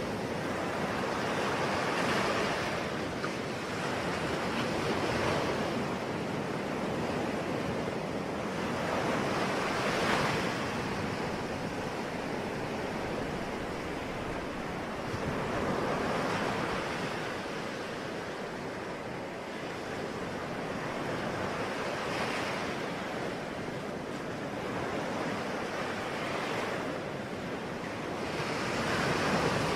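Ocean waves breaking and washing on a shore, a steady rush of surf that swells with each wave every few seconds.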